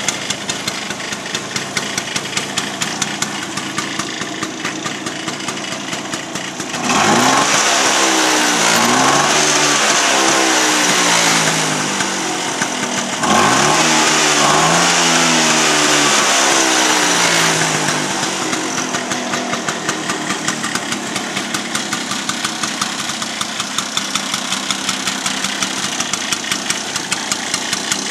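1970 Vespa Sprint Veloce's single-cylinder two-stroke engine idling with a fast, even pulsing, revved up twice in the middle for several seconds each, its pitch climbing and then falling back to idle.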